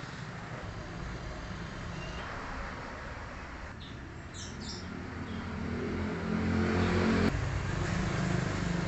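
Sawmill machinery running with a steady mechanical noise. About six seconds in, a motor hum grows louder and rises in pitch, then changes abruptly a little after seven seconds. A few bird chirps come through about four seconds in.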